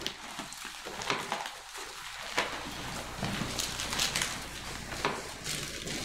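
Pages of a Bible being leafed through on a lectern: a run of quick papery rustles and flicks, busier in the second half, over a low steady hum.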